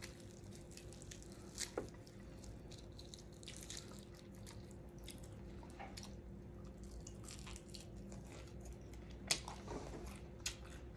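Faint chewing and mouth sounds of someone eating crisp fried flounder, with scattered small clicks and crackles from the fried batter, two of them a little louder, over a low steady room hum.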